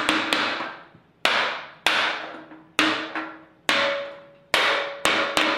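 Hammer tapping a metal paint-can lid down to seat it shut: a series of sharp strikes, roughly one a second with some in quick pairs, each followed by a short metallic ring from the can.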